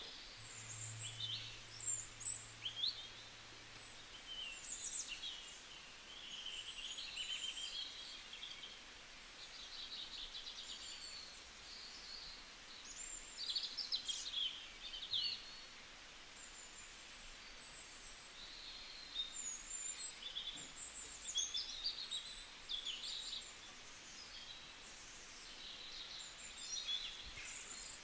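Birds chirping and calling: many short, high chirps and quick sliding whistles, coming in irregular clusters over a faint steady hiss. A low hum sounds for the first few seconds.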